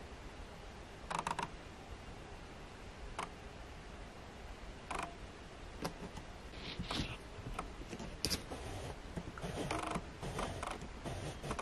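Roe deer buck licking salt off tree bark: irregular wet rasping and clicking scrapes of its tongue and mouth on the trunk, coming more often in the second half.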